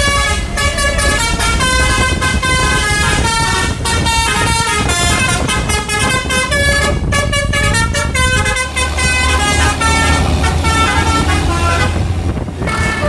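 Tour bus's Basuri 'telolet' musical horn playing a melody of short stepped notes, several a second, with a brief break near the end. The bus's engine rumbles low underneath.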